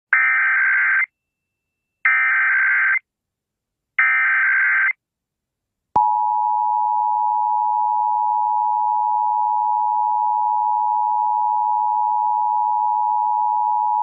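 Emergency Alert System tones as broadcast on FM radio: three one-second bursts of the SAME digital header, each a buzzy electronic screech, with short gaps between them. About six seconds in, the steady two-tone attention signal starts and holds, the alert tone of a monthly EAS test.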